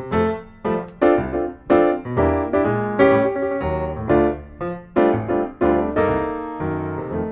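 Piano music, a run of struck notes starting suddenly.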